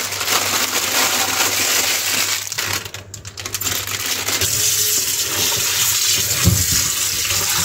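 Kitchen tap water running and splashing into a steel bowl in a stainless-steel sink as raw chicken and chicken liver are rinsed by hand; the flow stops briefly about three seconds in, then runs again.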